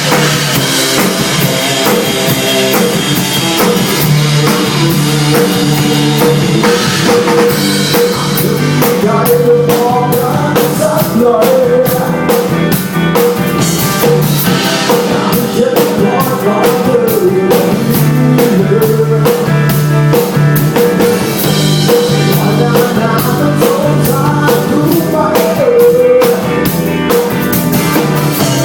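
Live rock band playing through a song at a sound check: a drum kit keeping a steady beat under electric guitar and bass, loud and continuous.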